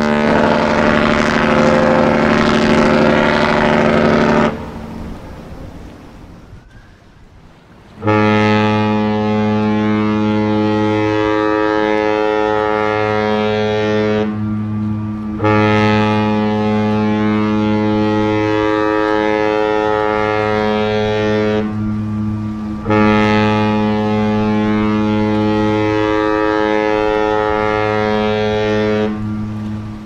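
A cruise ship's horn sounds one long blast that stops about four seconds in and dies away. Then, about eight seconds in, the deep horn of the cruise ship Mein Schiff 1 gives three long blasts of about six seconds each, with short gaps between.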